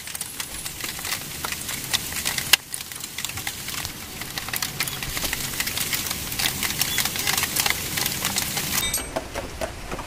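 Scattered metal clicks and taps of a spanner working the mounting bolts of a Bajaj Pulsar's front disc-brake caliper as it is fitted, with one sharper knock about two and a half seconds in.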